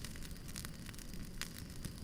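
Wood fire crackling: scattered sharp pops over a steady hiss and low rumble.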